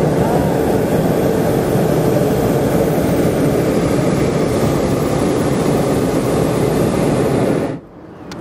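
Hot air balloon propane burner firing: a loud, steady roar that stops abruptly near the end.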